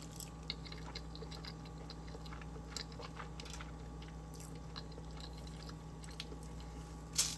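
A person chewing a mouthful of chicken carbonara lasagna close to the microphone: soft, wet mouth clicks scattered throughout, with one sharper click near the end.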